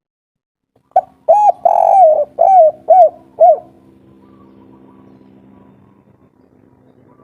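Spotted dove (tekukur) cooing one song phrase of about six arched coo notes, starting about a second in, with a long falling note early on and a run of short notes at the end, the 'kuk 3' song type. A faint steady hum follows the phrase.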